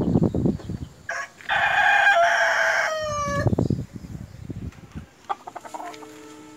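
A rooster crowing once, about a second in: a long held cock-a-doodle-doo that falls in pitch at its end. Bursts of rough noise come just before and just after the crow.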